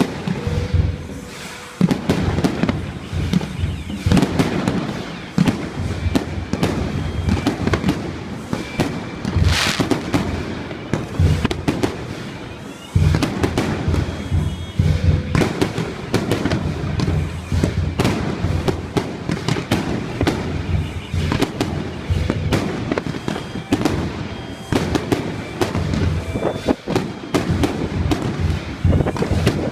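Fireworks and firecrackers going off without a break, a dense crackle of overlapping bangs, with a louder bang about thirteen seconds in.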